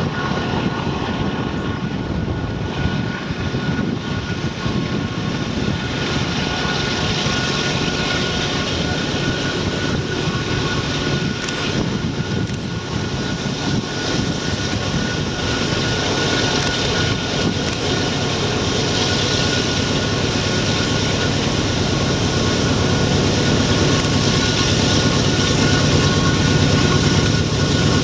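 Norfolk Southern train rolling past, a continuous steady rumble that grows a little louder near the end.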